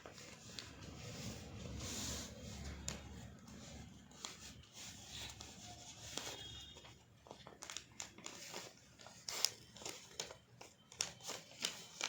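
A sheet of paper being folded and creased by hand: irregular rustling and crinkling with short sharp scrapes and taps, coming thicker and faster in the last few seconds.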